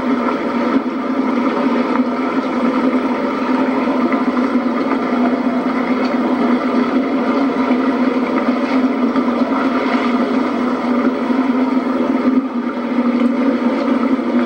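A 40-horsepower boat motor running with a steady hum as the boat moves along at low speed, heard through a television speaker.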